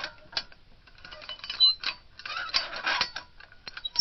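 Playground swing creaking as it sways, a run of irregular squeaks and creaks with a short high squeal partway through.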